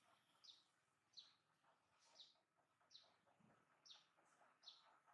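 A bird chirping faintly, short high downward chirps repeated about once a second.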